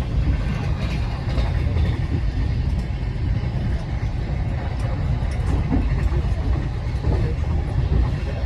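Wheels of a long-distance passenger train rolling on the rails: a steady low rumble with scattered knocks of the wheels over the track.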